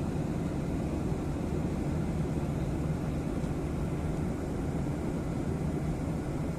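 Steady low rumble of a moving vehicle, running evenly without change.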